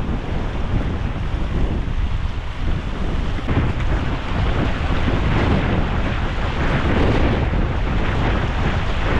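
Strong, gusty wind blasting across the microphone in a mountain rainstorm, a loud steady rush.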